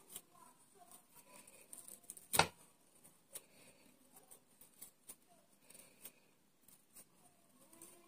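A metal fork combing tangled hair and lint out of a broom's bristle strip: light scratching with scattered small clicks, and one sharper click about two and a half seconds in.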